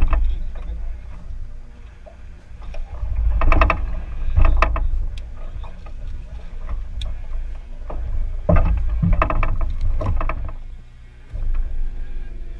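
Wind rumbling on an action camera's microphone in an aluminum fishing boat, with several loud bursts of knocking and rustling as a largemouth bass is landed out of thick vegetation: one cluster about three to five seconds in and a longer one about eight to ten seconds in.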